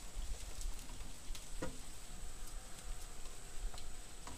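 Quiet outdoor river ambience: scattered light ticks and clicks over a steady high-pitched whine and a low rumble. A faint held tone enters about a second and a half in.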